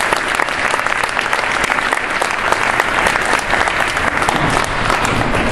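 Audience applauding steadily in a gymnasium.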